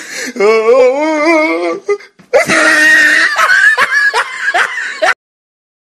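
Loud human laughter in long wavering peals, with a short break, cutting off suddenly about five seconds in.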